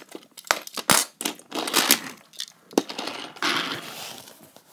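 Toy train engine and wagons being handled and pushed along plastic toy track: a string of sharp clicks and knocks, with scratchy, rattling rolling noise in between.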